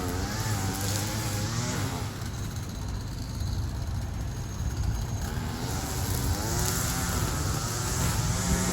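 Gas string trimmer (weed eater) engine running, its pitch rising and falling as the throttle is worked, easing back to a steadier, lower run for a few seconds in the middle.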